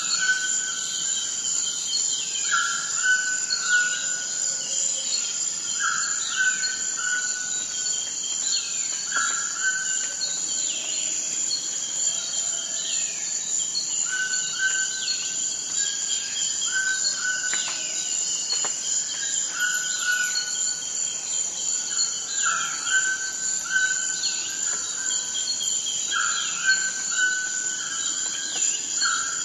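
Amazon rainforest ambience: a steady high insect drone. Over it, a short two- or three-note call repeats every few seconds, and many quick falling chirps come and go.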